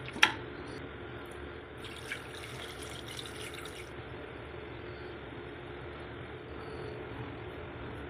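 Mutton pieces simmering in broth in a steel pot, a steady watery bubbling, with a sharp clink just after the start.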